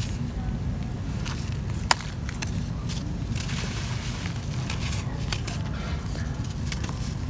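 Dry mud being crumbled by hand, with powder and small clumps sifting through the fingers onto a dusty floor. It makes a soft gritty hiss and scattered small crackles and ticks, the sharpest about two seconds in, over a steady low rumble.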